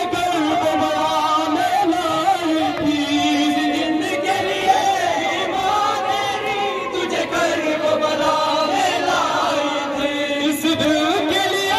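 Male voices chanting an Urdu noha, a Shia mourning lament, in a continuous sung melody.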